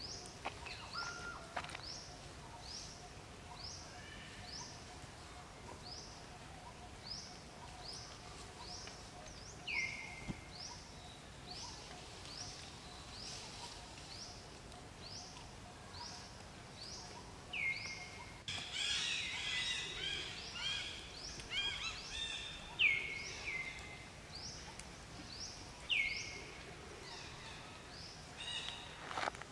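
Forest birds calling: a steady run of short, high down-slurred notes, about one every second or a little faster. A few louder, lower down-slurred calls come in now and then, and a burst of busy overlapping calling starts just past halfway and lasts about four seconds.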